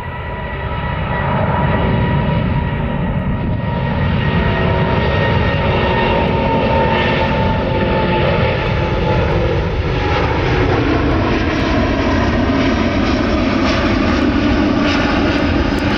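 Airbus A330-900neo's Rolls-Royce Trent 7000 turbofans at climb power as the jet climbs away after takeoff. A steady jet roar with a deep rumble and whining tones that slowly fall in pitch, growing louder over the first couple of seconds and then holding.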